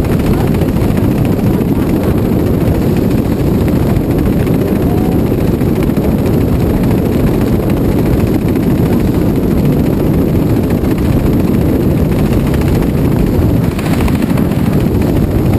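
Steady, heavy wind noise buffeting the camera microphone during a tandem parachute descent under an open canopy, while the canopy is spiralled.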